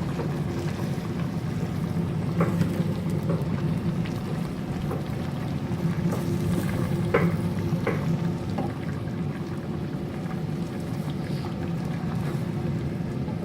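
Green curry with coconut milk cooking in a hot pan, over a steady low hum, with a few light clinks of a utensil against the pan.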